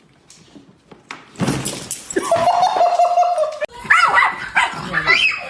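A dog vocalizing after a quiet start: a held whining note, then a run of short yelps and whines that rise and fall in pitch.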